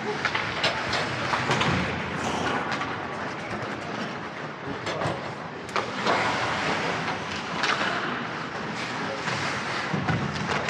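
Ice hockey play: skate blades scraping and carving the ice, with scattered sharp clacks of sticks striking the puck and the ice.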